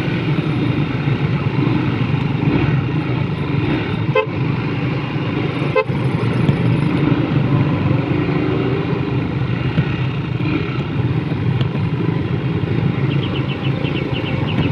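Motorcycle engine running on the move under a steady mix of engine and road noise, with two short horn beeps, about four and six seconds in.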